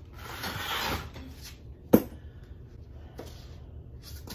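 A rustling, scraping shuffle, then a single sharp knock about two seconds in as a pair of leather cowboy boots is set down on a hard floor.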